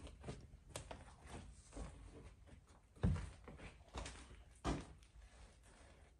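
Footsteps on a debris-littered floor, a string of uneven scuffs and knocks, with two heavier thumps about three seconds in and again near five seconds.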